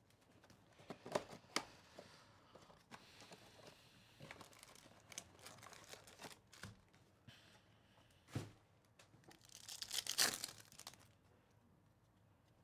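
Faint crinkling and tearing as a 2024 Topps Chrome Baseball Monster box and its foil card packs are opened by hand, in scattered bursts with small clicks. The loudest burst of tearing comes about ten seconds in, then the handling goes quiet.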